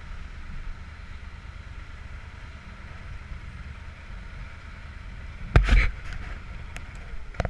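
Yamaha Super Tenere's parallel-twin engine running at idle as the motorcycle rolls slowly. A loud clatter comes about five and a half seconds in, followed by a few sharp clicks near the end.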